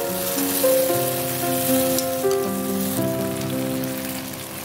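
Background music of slow, held notes over tofu and tomato sauce sizzling in a frying pan.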